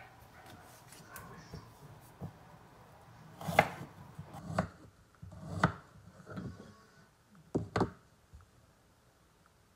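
Santoku knife chopping fresh ginger on a wooden cutting board: a few sharp knocks of the blade on the wood, spaced about a second apart, then two close together near the end.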